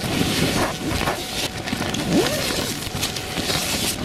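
Tent and tarp fabric flapping heftily in strong gusty wind, with irregular slaps and cracks over a steady rush of wind.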